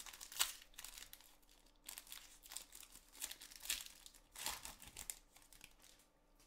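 Foil wrapper of a football-card pack being torn open and crinkled by hand, in a run of short crackling rustles that die away about five seconds in as the cards come out.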